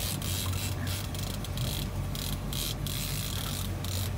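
Line-counter trolling reel being cranked against a hooked muskie, its gears whirring in uneven runs, over the steady low hum of the boat's engine.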